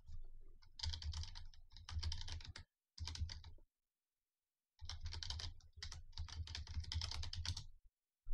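Typing on a computer keyboard in quick runs of keystrokes: one run for a few seconds, a pause of about a second, then a second longer run.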